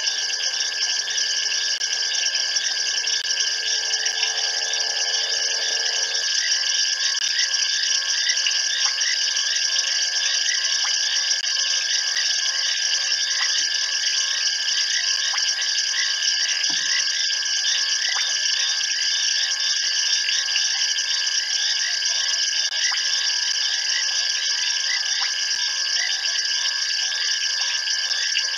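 Dense night chorus of insects and frogs calling from the bush around a waterhole. It is a steady, shrill trilling with many overlapping short chirps repeating throughout.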